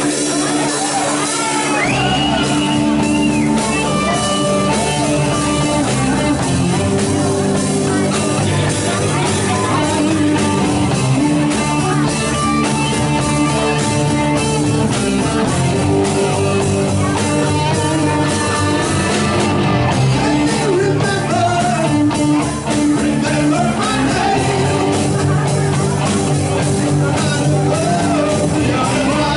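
Live rock band playing loud and steady, with electric guitar, bass, drums and keyboards.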